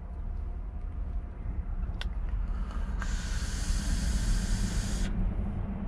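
A vape mod's coil sizzling for about two seconds during a long draw, preceded by a click about two seconds in, over the steady low rumble of the truck cab.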